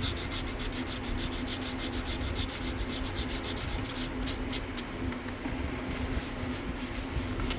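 Hand sanding with sandpaper on a bow's finish, stripping residual clear coat: quick back-and-forth strokes, several a second, that grow stronger and then fade toward the end.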